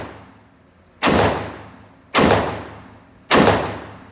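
Taurus Judge revolver firing .410 shotgun shells: three shots about a second apart, each echoing and dying away in an indoor shooting range.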